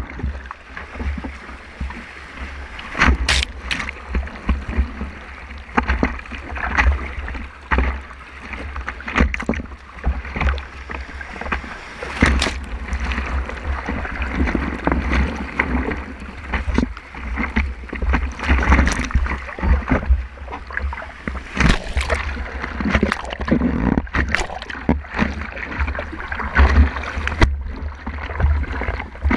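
Ocean surf rushing and splashing around a surfboard riding through small broken waves, heard close up from a camera on the board's nose: frequent irregular sharp splashes of water hitting the board and camera over a steady low rumble.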